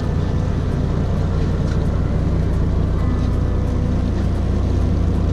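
Fishing boat's engine running steadily: a deep, even low rumble with a few steady tones above it.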